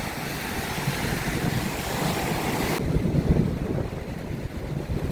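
Wind buffeting the microphone in an uneven low rumble, over the hiss of surf washing on the beach. The high hiss drops away abruptly a little under three seconds in, leaving mostly the wind rumble.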